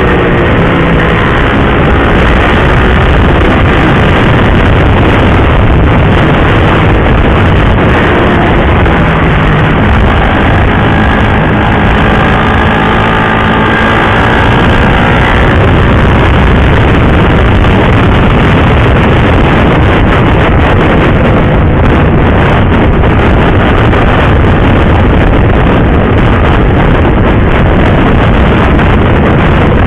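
Motorcycle under way, its engine running with a pitch that rises and falls gently in the first half, under steady loud wind rush on the microphone.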